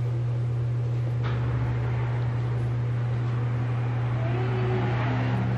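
Steady low electrical-sounding hum over even background noise, with faint voices in the room about four seconds in.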